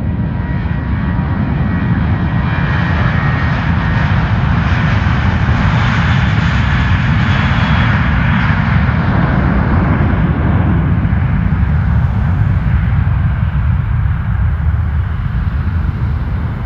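Airplane engines as an aircraft passes close by: a loud, steady rumble with a rushing hiss and faint whine that builds to a peak a little past the middle, then fades.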